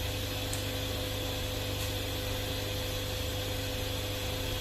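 Steady FM radio static hiss from a car stereo's speaker, over a low mains hum and a faint steady tone, showing the amplifier now passes sound after its IC was replaced.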